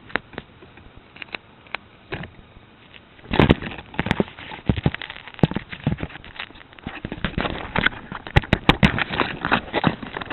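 Strong wind gusts buffeting the microphone, heard as irregular crackling and popping that is sparse at first and turns dense and louder about three seconds in.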